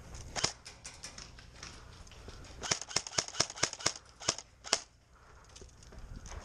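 Airsoft guns firing: one sharp crack about half a second in, then a quick, uneven string of about ten shots around the middle.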